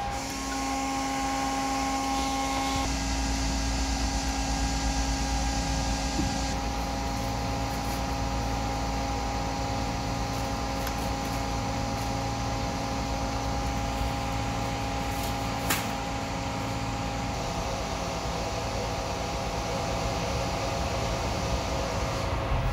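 Steady machine hum with several steady tones, its sound changing abruptly about three and six seconds in. A single brief knock about two-thirds of the way through.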